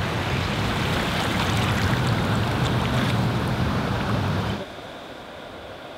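Surf swash washing up over the sand, a steady rush of water that drops off abruptly after about four and a half seconds.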